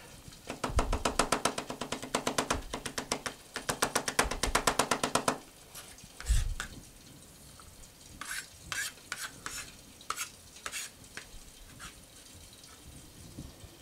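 Kitchen knife rapidly chopping garlic on a plastic cutting board, an even run of quick chops lasting several seconds with a short break in the middle. A single heavier thump follows, then a few lighter, scattered knife taps.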